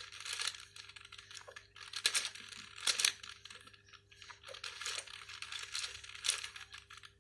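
Plastic clicking and clacking of a 5x5 Rubik's cube as its layers are turned, in irregular runs with a few sharper clacks.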